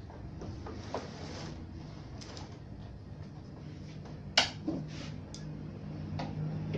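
Scattered plastic clicks and knocks from a CRT television's rear cover being worked with a screwdriver and shifted, the sharpest click about four and a half seconds in, over a low steady hum.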